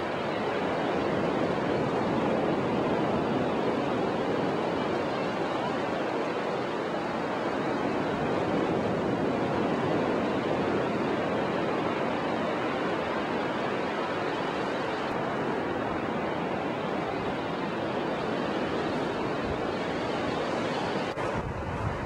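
Ocean surf washing onto a beach: a steady, even rush of noise, with wind rumbling on the microphone near the end.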